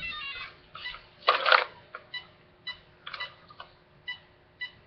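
Traxxas VXL electronic speed control beeping during a start-up attempt made with the throttle held. It opens with a quick run of stepped tones, a clatter comes about a second in, and then short beeps follow about twice a second. The owner says the attempt is messed up.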